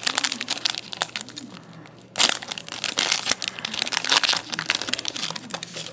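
Trading card pack being opened by hand: wrapper crinkling and crackling, with one sharp, louder rip about two seconds in.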